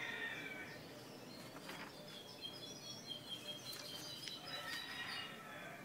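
Birds chirping in the background with high, wavering calls, along with a few light rustles and taps of glossy magazine pages being handled.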